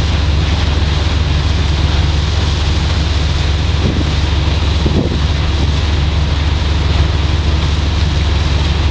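Steady low rumble of a ship's machinery on deck, mixed with wind on the microphone.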